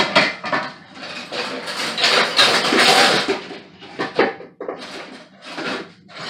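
Pots, pans and dishes clattering and knocking against each other as they are rummaged through and set aside, with a louder stretch of clatter about two to three seconds in.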